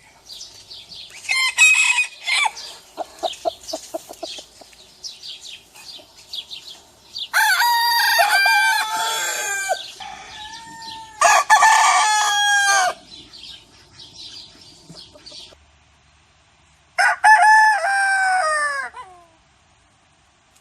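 Roosters crowing: three long cock-a-doodle-doo crows, about 7, 11 and 17 seconds in, the last trailing down in pitch. Chickens cluck and squawk in quicker, shorter calls over the first few seconds.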